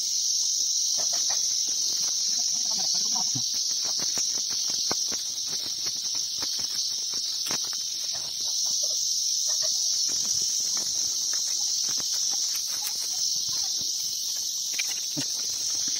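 Steady, high-pitched insect chorus droning through the forest, with faint footstep clicks on the trail beneath it.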